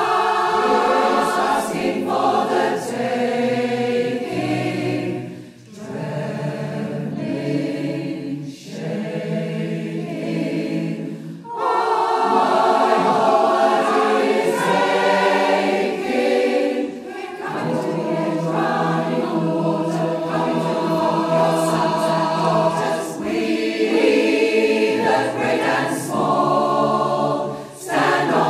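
Background music: a choir singing, with brief pauses between phrases.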